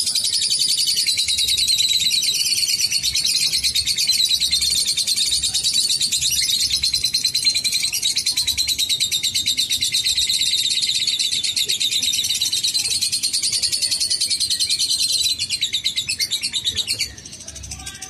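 Lovebird singing a long, unbroken run of very rapid chattering trills (the 'ngekek panjang' that keepers train for), breaking off about a second before the end.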